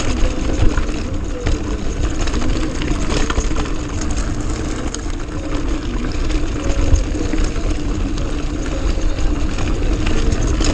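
Mountain bike riding over a rough dirt trail: a steady low rumble of wind on the camera microphone, with frequent sharp clicks and knocks as the bike rattles over roots and rocks.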